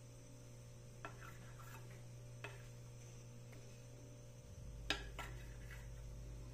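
Kitchen knife cutting through soft bread dough and knocking against a stone countertop: a few faint clicks, the sharpest about five seconds in, over a low steady hum.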